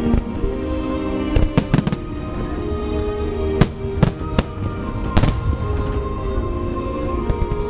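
Fireworks shells bursting as sharp bangs: a cluster about a second and a half in, three more around four seconds, and the loudest about five seconds in, which echoes afterwards. Music with long held notes plays steadily underneath.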